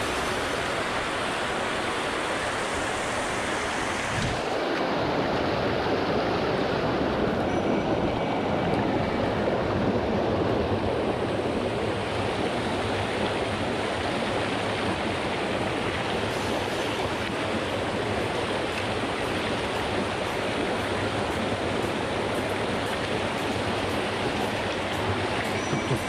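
Mountain stream rushing over rocks and small cascades in a steady flow of water. About four seconds in, the high hiss fades and a deeper, fuller rush takes over.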